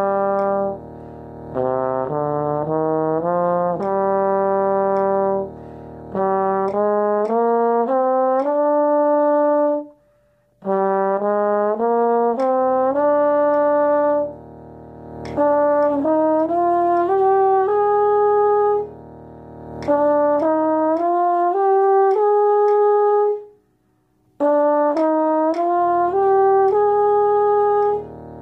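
Bass trombone playing five-note groupings that rise step by step through the E-flat major scale, each grouping repeated a few times with short breaths between, aiming for an even, smooth sound across the five notes. A steady pitch drone and metronome clicks sound underneath.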